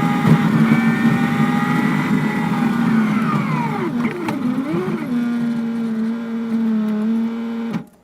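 Bus engine running while driving, its pitch sagging and swinging briefly about halfway through as the revs drop and pick up again, then cutting off suddenly near the end.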